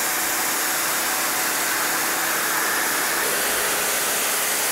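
Sun Joe SPX2003 electric pressure washer spraying, its water jet hissing steadily against vinyl siding with a faint steady hum underneath, as it blasts off mold and mildew.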